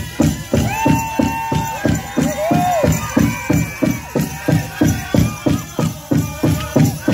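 Pow wow drum group playing a men's chicken dance song: one big drum struck in a steady beat of about three strokes a second, with high held singing over it in the first half.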